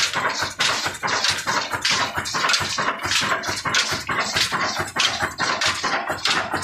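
Old Ruston Hornsby diesel engine driving a belt-driven stone flour mill (chakki) while grain is fed in: a loud, dense grinding noise with a rapid, uneven beat.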